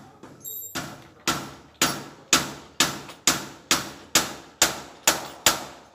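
Hammer blows at the top of a steel trellis door being fitted: about eleven sharp strikes, roughly two a second, each ringing briefly.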